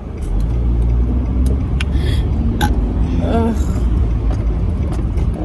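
Car engine and road rumble heard from inside the cabin, growing louder just after the start as the car pulls away, with a short vocal sound about three seconds in.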